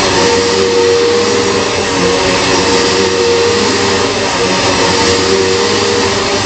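Bissell PowerForce Turbo Pet upright vacuum cleaner running steadily, a loud even rush of air with a constant whining tone from its motor.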